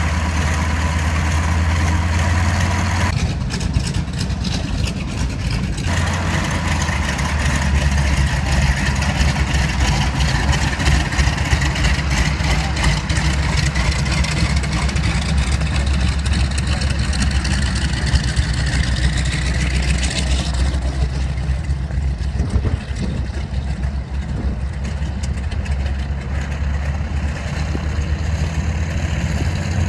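Ford Tri-Motor's three radial piston engines running at low power, a steady deep drone whose note shifts a few times, with a slowly rising tone from about a third of the way in to two-thirds.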